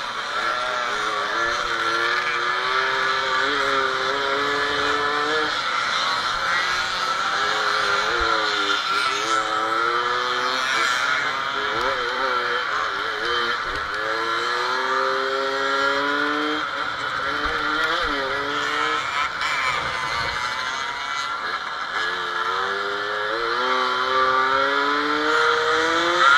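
Small Fichtel & Sachs two-stroke moped engine heard from on board, revving up again and again. Its pitch climbs over a few seconds, drops at each gear change or throttle lift, then rises again.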